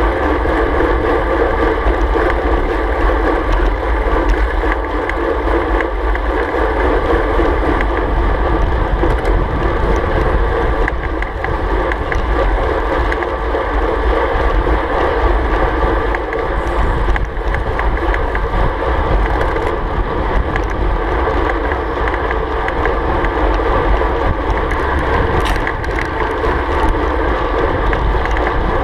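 Steady wind rush and road noise on a road bike's handlebar-mounted GoPro, riding at about 40 to 50 km/h.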